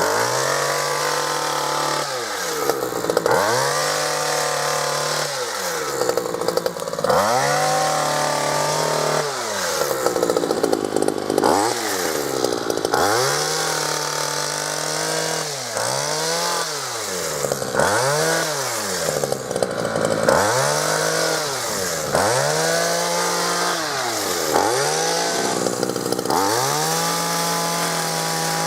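Ryobi RHT2660DA two-stroke petrol hedge trimmer engine, revved up and dropped back to idle over and over, about a dozen times, while cutting through overgrown bushes.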